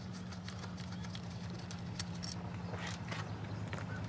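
Light, irregular clicks and taps of plastic and metal as a 2008 Toyota Corolla's ignition coil is worked loose and lifted out by hand, over a steady low hum.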